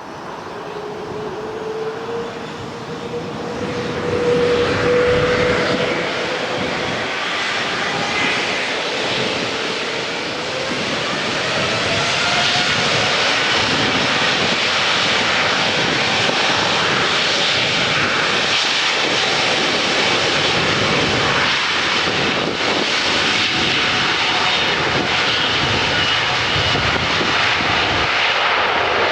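Boeing 787-10 jet engines, growing louder over the first dozen seconds with a faint whine that slowly rises in pitch, then running steady and loud.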